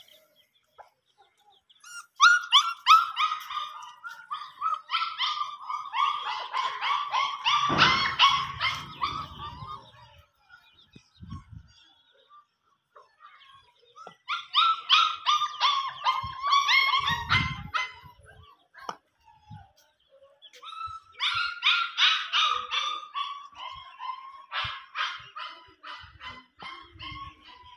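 An animal calling in three bouts of rapid, repeated harsh notes, each bout several seconds long, with the pitch sliding slightly down through each bout.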